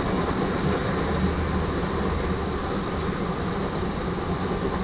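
Crude oil tank cars of a freight train rolling past on the track: a steady, even rolling noise of steel wheels on rail.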